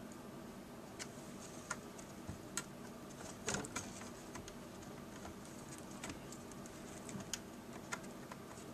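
Faint, scattered clicks and taps of small plastic and metal parts being handled as a laptop's display assembly is worked on, one somewhat louder click about three and a half seconds in, over a low steady hum.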